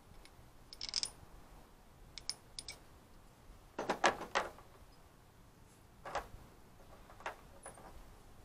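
Metal mounting hardware clinking and knocking against a diamond-plate truck toolbox as an antenna mount is lined up on it: scattered light clinks every second or two, the loudest cluster about four seconds in.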